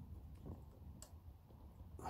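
Near silence: room tone with a couple of faint small ticks, one about half a second in and a fainter one about a second in.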